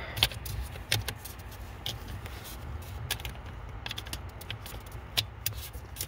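Hands working at a car's under-dash fuse box, pressing the plastic cover back into place: scattered light plastic clicks and rubbing, a handful of separate clicks spread through.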